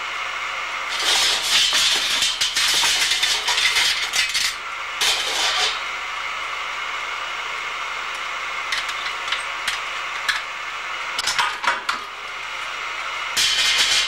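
Steel barrel hoop band clattering and scraping as it is worked through a belt-driven hoop machine with a large flywheel. The metallic rattling comes in bursts: a long run starting about a second in, another shortly after, scattered clinks in the middle and a last burst near the end, all over a steady hum.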